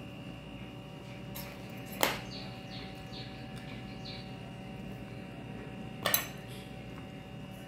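Sharp metallic clinks of kitchen utensils: one about two seconds in and a quick double clink near six seconds. A few faint high chirps come between them, over a faint steady hum.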